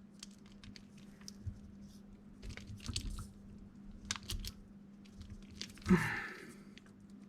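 Screwdriver turning small screws into a 3D-printed plastic housing, giving faint, irregular clicks and creaks, with a brief louder sound about six seconds in.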